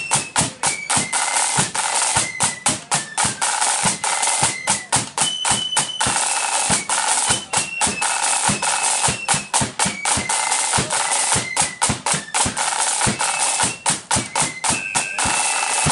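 Marching flute band playing a tune: flutes carry the melody over fast, continuous snare drum rolls and strokes and a bass drum beat.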